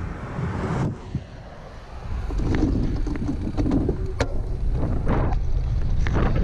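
Heavy wind noise buffeting a bike-mounted GoPro's microphone, a low rumbling rush that gets louder about two seconds in, with a few sharp clicks.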